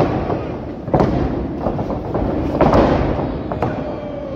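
Heavy thuds of bodies and feet hitting a wrestling ring's mat: about four sharp impacts in a few seconds, with voices underneath.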